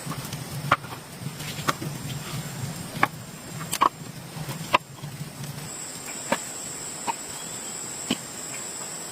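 Sharp, separate knocks, roughly one a second, over a steady high-pitched insect drone. A low hum underneath stops a little past halfway.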